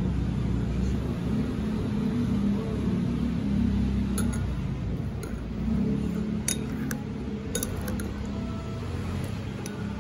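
A metal spoon clinks against a ceramic bowl a handful of times from about four seconds in, as a liquid dipping sauce is stirred, over a steady low rumble.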